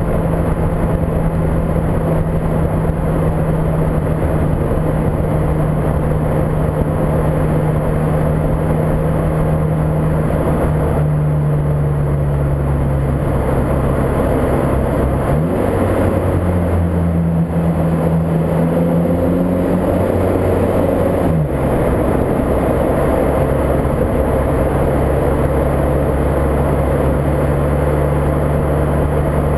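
Volkswagen Golf MK5 GTI's 2.0-litre turbocharged four-cylinder running on the move, with heavy wind on the microphone and road noise. The engine note steps up about halfway through and drops back about six seconds later.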